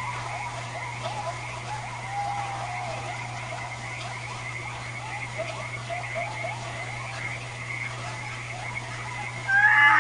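Night chorus of many frogs croaking, with short rising calls overlapping continuously over a steady low hum. Near the end, a much louder animal call with several held, pitched tones cuts in.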